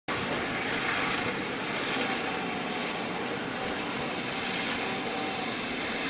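Case 1818 skid steer with its self-powered snowblower attachment, driven by a 13 hp Honda-clone engine, running steadily as a constant engine drone.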